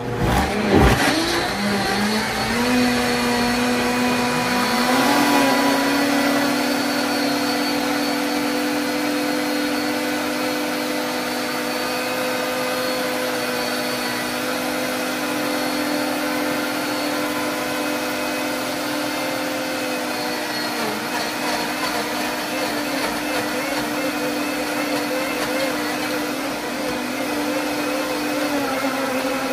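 Two high-powered blenders, a Blendtec 650S and a Vitamix A3500, run side by side blending kale with water. They start together, one settles to a steady hum within a couple of seconds, and the other's whine climbs to a higher pitch about five seconds in. Both then run steadily.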